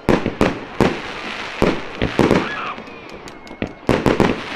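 Aerial fireworks shells bursting at very close range: about ten sharp bangs in quick clusters near the start, in the middle and near the end, with crackling between them.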